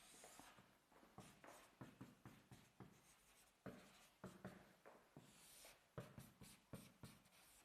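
Faint writing strokes: a run of short, irregular scratches and taps, with one longer scratch about five seconds in.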